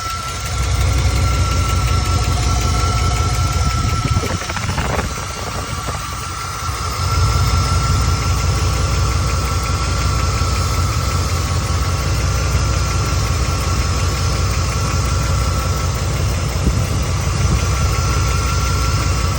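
1991 Chevrolet K1500's 5.7 TBI V8 idling with a steady ticking from the engine bay, which the owner suspects could be lifters or an exhaust leak, on the passenger side. The low rumble drops back for a couple of seconds about four seconds in, then returns.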